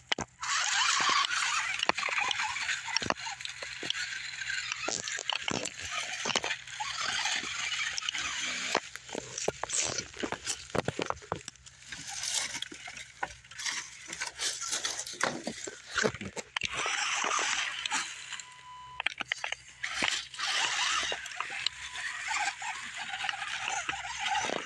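Small electric RC rock crawler climbing over rocks: its motor and gearbox run in spurts, with frequent clicks, crackles and scrapes from the tyres and chassis on rock.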